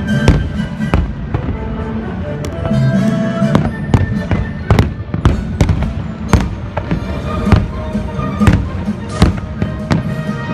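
Fireworks bursting in an irregular series of sharp bangs, a dozen or more, over the show's music soundtrack.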